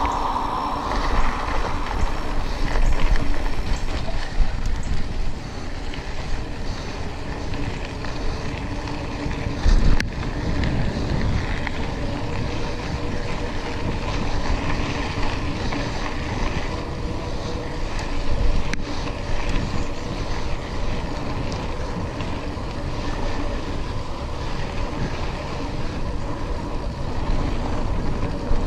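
Mountain bike ridden at speed: wind buffeting the microphone over the steady rumble of the tyres on sand and gravel, with a couple of sharp knocks from the bike along the way.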